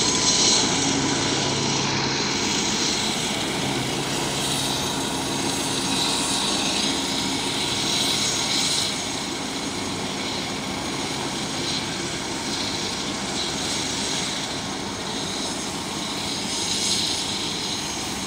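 Turbine helicopter running on the ground: a steady engine and rotor noise, a little louder in the first half.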